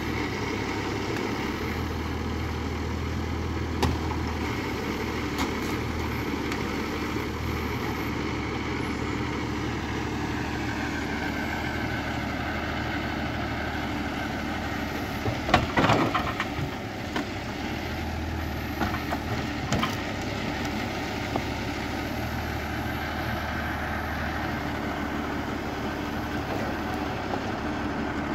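Valtra 8350 tractor's six-cylinder diesel running steadily at working speed, driving the hydraulics of a Palms 12D forestry trailer crane as it handles logs, its pitch sagging and recovering slightly as the crane works. A cluster of loud knocks about halfway through as logs bump in the grapple, with a few lighter clicks elsewhere.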